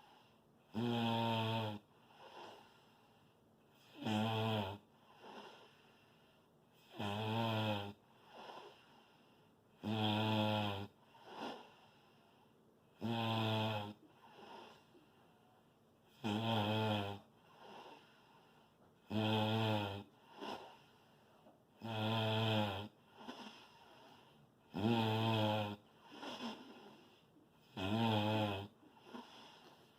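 Person snoring loudly in a steady rhythm, one snore about every three seconds, each a second-long rattling drone followed by a quieter breath.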